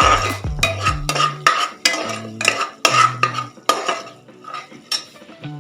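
A metal spoon stirring and scraping frying masala paste in a pressure cooker pot, with repeated scrapes and clinks about two or three times a second.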